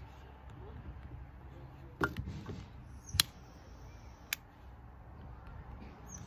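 Long-neck butane utility lighter clicking as its trigger is pulled: three sharp clicks about a second apart, the second the loudest, followed briefly by a faint thin hiss.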